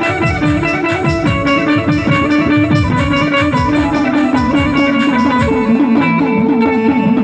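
Instrumental devotional folk music: a keyed Indian banjo (bulbul tarang) plays a melody of sustained, changing notes over a fast, steady drum beat.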